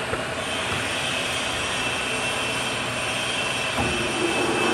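Steady machine noise of a metal lathe workshop. Near the end the lathe's four-jaw chuck spins up, adding a steady hum and growing louder.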